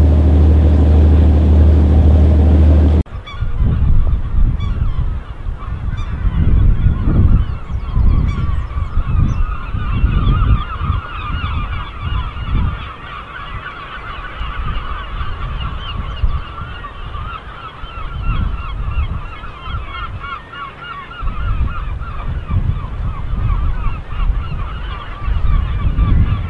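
For about three seconds a boat's engine runs steadily, then cuts off suddenly. After that a seabird colony of gulls calls continuously, many birds at once, with wind gusting on the microphone.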